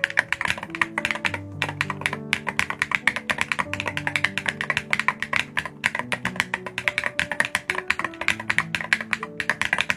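Mechanical keyboard fitted with WS Flux switches being typed on quickly: a dense, uneven stream of sharp key clacks, several per second, over background music with low sustained notes.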